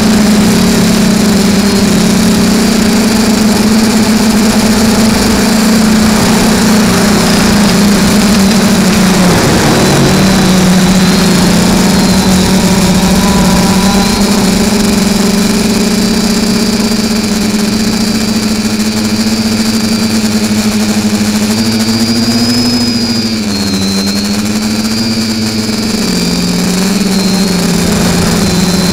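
FPV quadcopter's brushless motors and propellers, heard from its onboard camera: a loud, steady buzzing whine with a thin high whistle above it. Its pitch dips and recovers with the throttle, once about a third of the way in and again in a wavering swoop later on.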